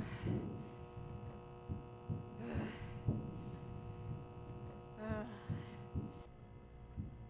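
Soft, irregular thumps of a cat crawling through a metal ventilation duct, over a steady hum. A short pitched sound comes about every two and a half seconds, and the hum stops about six seconds in.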